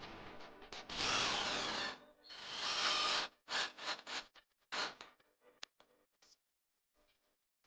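A tool working wood: two long noisy strokes of about a second each, then several short ones that die away.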